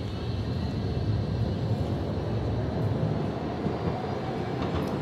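Steady low rumble of outdoor city ambience, with no distinct event standing out.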